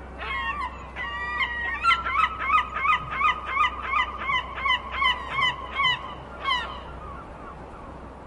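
Gull calling: a long run of short, harsh repeated calls, a few at first and then about two a second, stopping about six and a half seconds in.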